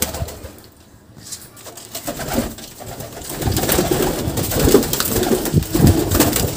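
Domestic pigeons cooing in a loft, softly at first and louder from about three seconds in.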